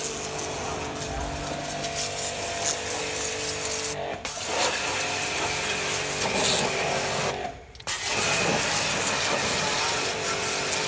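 High-pressure washer running, its pump motor humming under the hiss of the water jet spraying onto a steel truck chassis. The sound dips briefly about four seconds in and cuts out for about half a second near seven and a half seconds before starting again.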